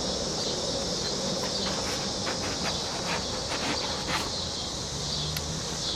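Cicadas droning steadily, with a run of light clicks and taps about two to four seconds in from handling the packaging.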